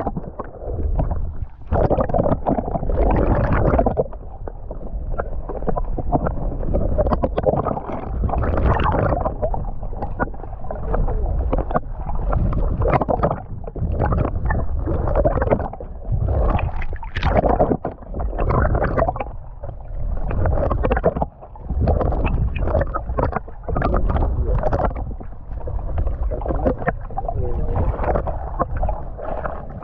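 Muffled rushing and gurgling of water as heard by a camera held underwater, with a heavy low rumble that swells and fades irregularly.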